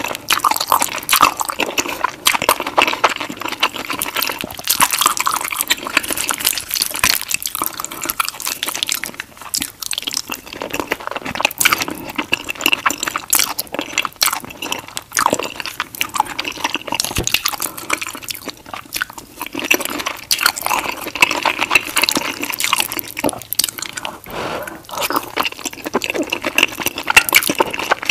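Wet slurping and chewing of fettuccine in creamy white sauce: a continuous, loud run of sticky, smacking mouth sounds with no pause.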